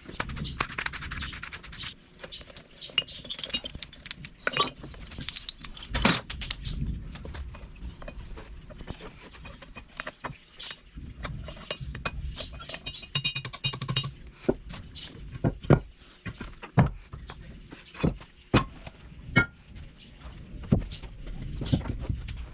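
Irregular metallic knocks and clinks, some ringing briefly, as metal tools and a steel workpiece are handled and struck.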